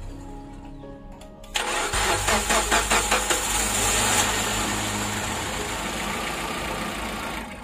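Proton Saga BLM four-cylinder engine, freshly top-overhauled to cure heavy oil burning from worn piston rings, cranks and catches about a second and a half in, with a quick pulsing run-up. It then settles into a steady idle.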